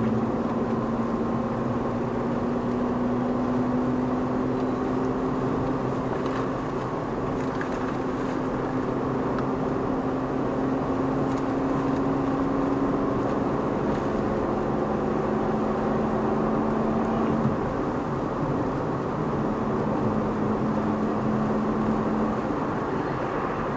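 A car's engine and tyre noise heard from inside the cabin while driving. The engine note climbs slowly as the car gains speed, then drops back about halfway through and holds steady.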